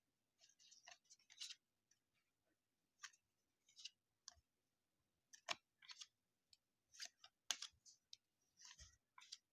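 Faint, irregular crinkling and rustling of a wax-paper baseball card pack wrapper being worked open and the cards inside being handled, with a couple of sharper clicks about five and a half and seven and a half seconds in.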